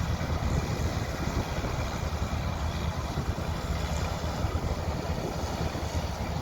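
Wind buffeting the microphone in an uneven low rumble, over the steady running of harvest machinery engines.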